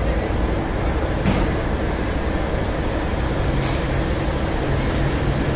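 Locomotive running at a station: a steady low rumble with a faint steady hum, and two short hisses, about a second in and again near four seconds in.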